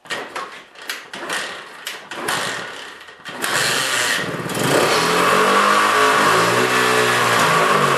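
Honda-clone single-cylinder minibike engine being started: a string of uneven pops for about three seconds, then it catches and runs loud at high revs, its pitch sagging and climbing again. The engine starts only on the choke and revs high before shutting down, which the owner takes for a fuel problem.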